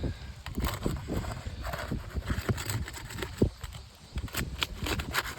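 Irregular knocks, taps and scrapes of asphalt shingles being lifted and handled on a roof, with a low rumble underneath.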